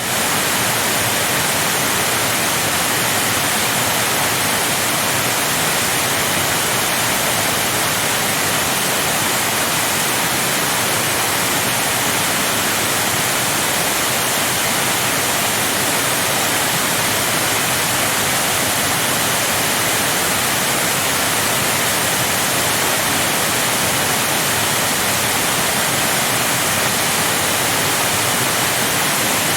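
Waterfall: a steady rush of falling water, even and unbroken, with most of its energy high up in a hiss-like spray.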